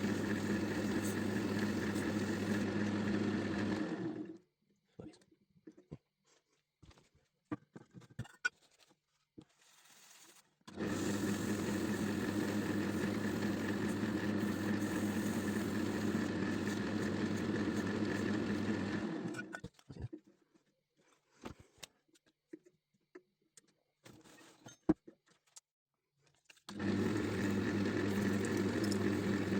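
Wood lathe's electric motor running with a steady hum. It stops about 4 seconds in and again near 20 seconds, starts again about 11 seconds and 27 seconds in, and leaves light clicks and handling knocks in the pauses.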